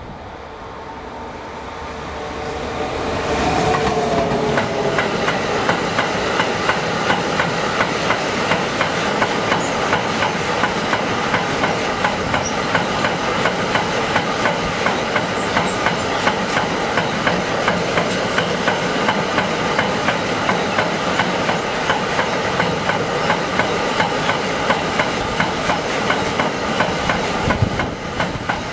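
Electric locomotive approaching and passing close by, growing louder over the first few seconds with a whine that drops in pitch as it goes past. Then a long train of loaded double-deck car-transporter wagons rolls by with a steady rumble, and its wheels click rhythmically over the rail joints, about two clicks a second.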